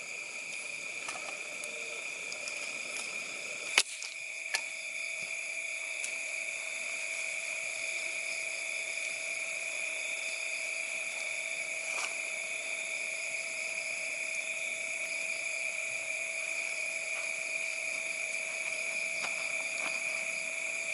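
A steady chorus of night insects trilling on several fixed high pitches, with two sharp clicks about four seconds in.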